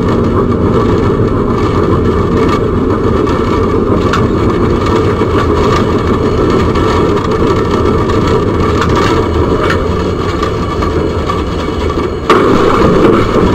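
Tram running at speed, heard from inside the driver's cab: a steady low rumble with a few faint clicks. A sudden, louder noise sets in near the end.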